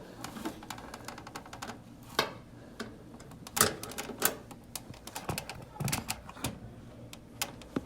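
A hook clicking, scraping and knocking against parts inside a front-load washer's cabinet while it is worked to catch and pull the door lock's release tab. A quick run of small clicks comes first, then a string of single sharp knocks.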